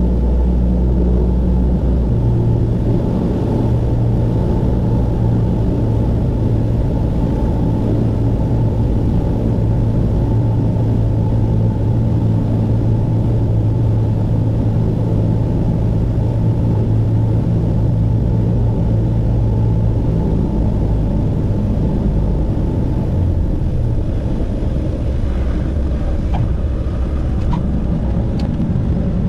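Cessna 172's single piston engine and propeller droning steadily in the cockpit during the landing approach. The engine note drops about two-thirds of the way through as power is reduced near the runway. A few faint clicks come near the end.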